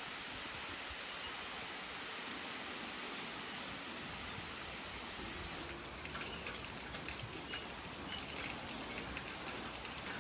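Steady, even hiss of water, like rain falling, with faint short high sounds in the second half.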